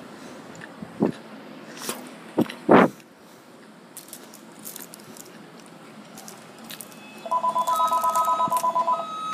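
A few knocks and rustles of a phone being handled close to the microphone, the loudest about three seconds in. Near the end, rapid electronic beeping, many short pulses in under two seconds, then a steady higher beep.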